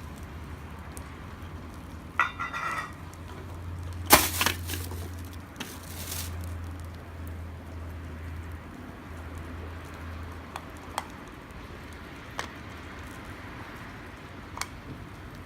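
Wood campfire crackling: sharp pops and snaps over a low steady rumble, the loudest crack about four seconds in with a few quick pops after it, then single pops spaced out further on.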